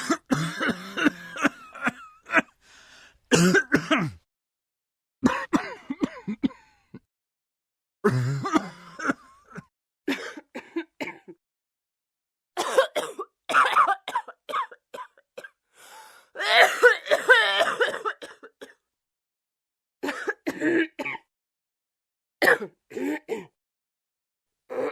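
A person coughing and clearing their throat in about nine irregular bouts separated by short silent pauses.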